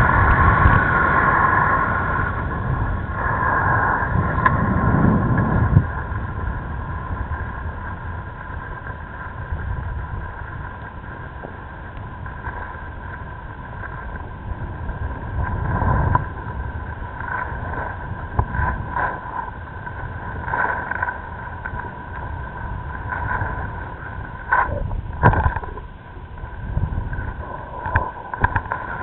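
Skis sliding over packed snow with wind rumbling on the microphone during a downhill run, louder for the first few seconds, with a few sharper scrapes or knocks in the second half.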